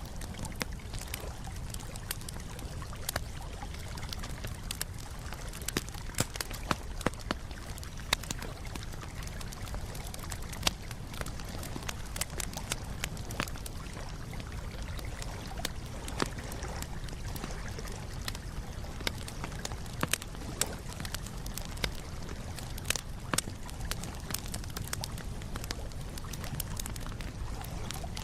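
Wood campfire crackling: irregular sharp pops and snaps, several a second, over a steady low background noise.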